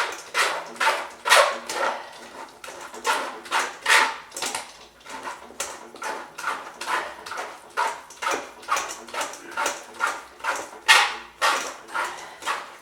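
Puréed duck liver being pushed and scraped through a double-wire mesh strainer: a steady rhythm of scraping strokes, about two a second.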